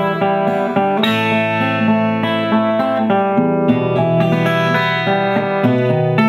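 Instrumental break of a song: backing music with no singing, chords held and changing roughly every second.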